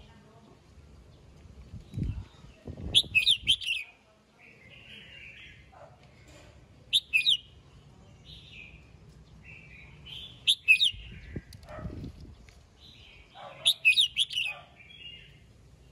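Red-whiskered bulbul singing: four loud, short phrases of quick bright notes about three to four seconds apart, with softer chattering notes in between.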